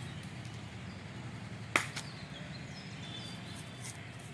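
Outdoor ambience with a steady low hum and a few faint high chirps, broken once about two seconds in by a single sharp hand clap, the kind used to signal a change of exercise.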